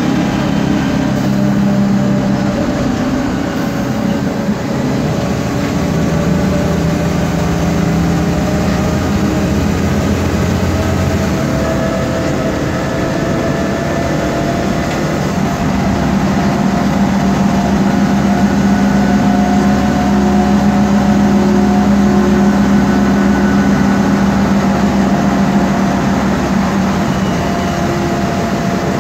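Cabin noise of a 2008 MAN Lion's Classic CNG city bus under way: an engine drone under a noisy rear-differential whine. Several steady tones slide slowly up and down with road speed, with a strong low hum in the second half.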